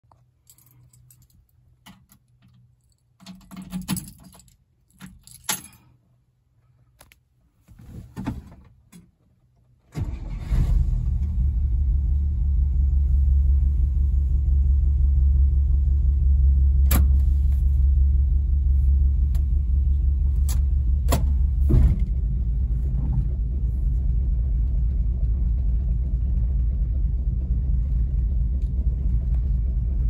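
Keys jangling and a few clicks, then about ten seconds in a vintage car's engine starts and runs steadily, with a few sharp clicks a little after the middle.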